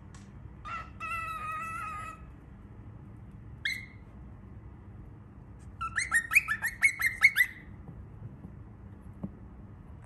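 Baby cockatiel calling: a held, even-pitched call about a second in, a single short chirp near four seconds, then a quick run of about ten sharp rising chirps, the loudest part, from about six to seven and a half seconds.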